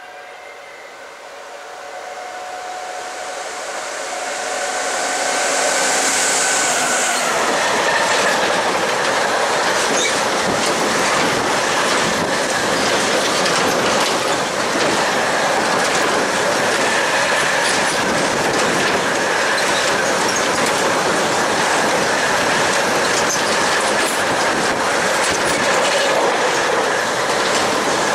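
Freight train running through a station at speed. Over the first several seconds a locomotive approaches, its steady whine growing louder until it passes. A long rake of enclosed car-transporter wagons then rolls by with a continuous loud rumble and rapid wheel clatter over the rail joints.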